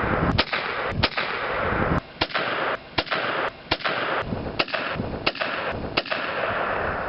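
A series of about eight gunshots, one every second or less, each followed by a long rolling echo.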